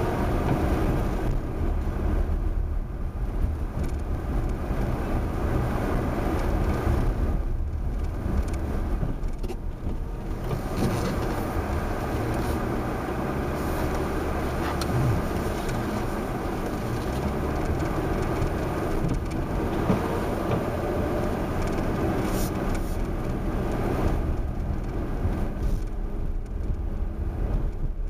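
2012 Honda Crosstour 4WD driving on compacted snow and ice: a steady run of engine and tyre noise.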